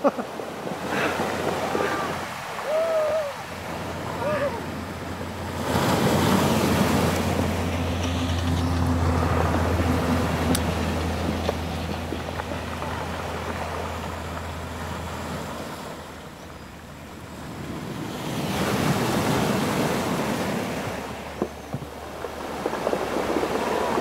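Sea surf breaking on the shore and washing back. It swells loudest about a quarter of the way in, fades, and swells again about three quarters through.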